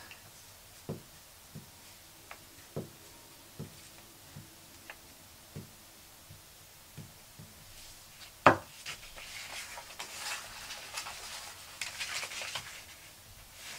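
Glue stick rubbed over a folded paper cut-out on a paper-covered table, with small soft knocks under a second apart, then one sharp click about eight seconds in. After that comes light paper rustling as the folded paper pieces are handled and pressed together.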